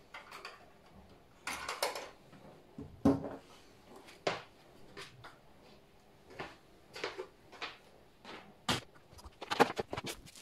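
Objects being handled and set down: a string of irregular knocks, clunks and short rustles, with a quick run of sharp clicks near the end.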